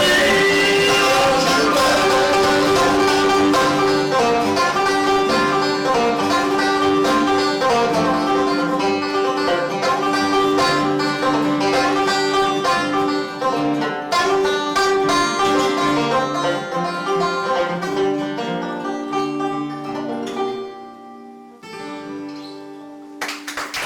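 Banjo and guitar playing an instrumental passage of plucked notes, thinning out and ending on a final ringing chord near the end.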